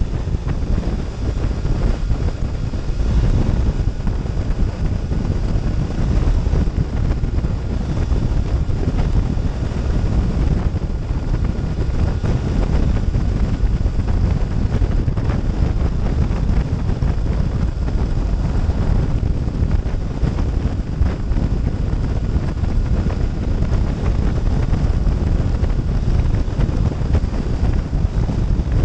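Steady wind buffeting on the microphone of a Triumph Thruxton 900 at road speed: a continuous low rumble, with the motorcycle's engine running underneath it.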